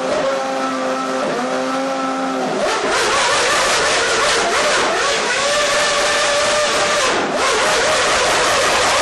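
McLaren Formula 1 V8 race engine running at high revs: a steady, high engine note that turns louder and harsher about two and a half seconds in, with a brief drop near the end.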